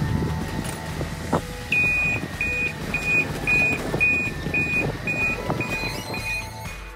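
New Holland wheel loader's engine running, with its backup alarm beeping about twice a second from about two seconds in as the machine reverses.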